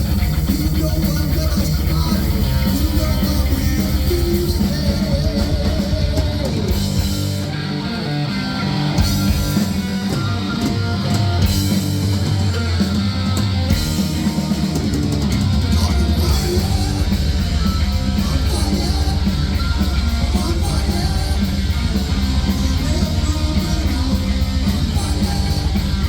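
Heavy metal band playing live: distorted electric guitar over bass and drum kit. The bass and kick drum thin out for several seconds about a third of the way in, then the full band comes back in.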